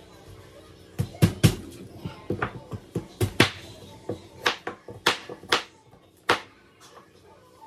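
Kitchen knife chopping vegetables on a cutting board: irregular sharp knocks, about two a second, stopping near the end.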